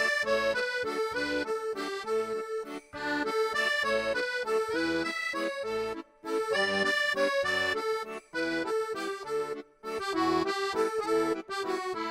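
Background music led by an accordion-like melody over a light rhythmic accompaniment, with short breaks between phrases.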